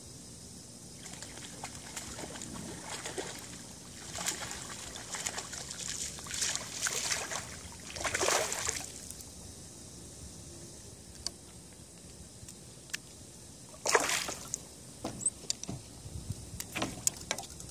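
Water splashing and sloshing close by in several short bouts, the loudest about eight seconds in and again near fourteen seconds, followed by scattered small clicks near the end.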